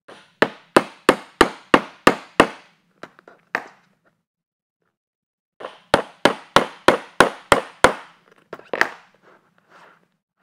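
A mallet striking a small hole punch to drive it through the bag's layers of vinyl, foam and canvas. It comes as two runs of about seven sharp knocks, roughly three a second, with a pause of about two seconds between.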